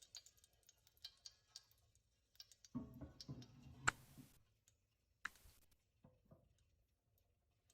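Near silence: room tone with a few faint, scattered ticks and clicks, the clearest one about four seconds in.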